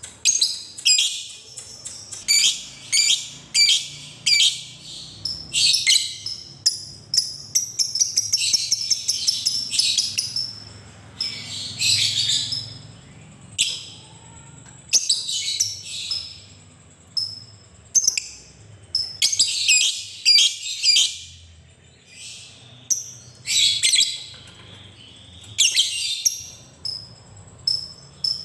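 A lovebird chattering in repeated shrill bursts of rapid chirps, some brief and some running on for a second or two. This is the prolonged chatter that keepers call ngekek.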